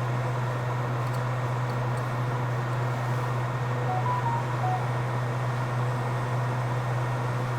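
Hot air rework station blowing steadily at 360 °C and airflow setting 50, a constant fan hum and air hiss, heating the solder under a water-corroded chip to lift it off an iPhone 6s logic board.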